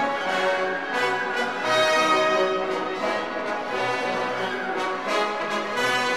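Orchestral background music with brass prominent.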